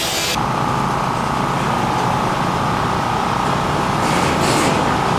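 Machinery running steadily, with a whine over a low rumble that sets in suddenly about half a second in.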